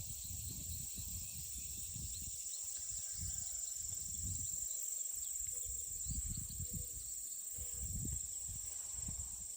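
A steady, high-pitched chorus of late-summer insects, with a few faint bird chirps over it and an intermittent low rumble on the microphone.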